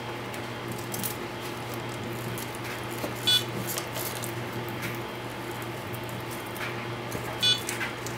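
ImmersionRC Vortex 230 Mojo racing quad, powered up on its battery, giving a short high electronic beep about every four seconds, the idle beep of a quad with no radio linked. Small clicks and rustles from handling the quad and its Velcro battery strap sound between the beeps.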